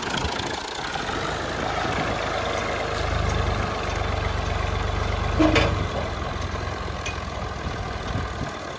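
Clayson 8080 combine harvester's diesel engine running steadily. Its deep rumble grows stronger from about three seconds in to about six seconds in, and there is a brief sharp knock about five and a half seconds in.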